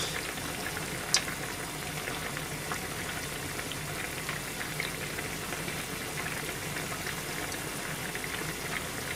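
A pan of nishime simmering on a gas stove, a steady bubbling hiss as the broth is cooked down to about half. Light clicks of chopsticks against the pan, one sharper about a second in.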